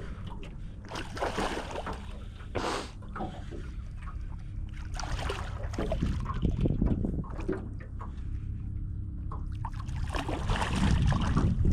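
Hooked redfish thrashing and splashing at the surface beside a boat, in irregular bursts of splashing over a steady low rumble.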